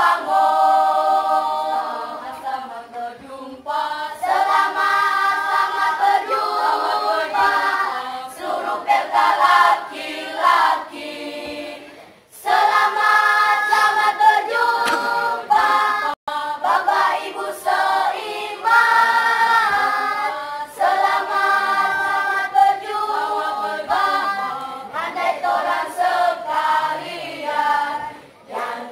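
Children's choir singing masamper, the Sangihe Islands' tradition of a cappella part-singing, several voices in harmony with no instruments. The singing dips briefly about twelve seconds in and cuts off for an instant a few seconds later.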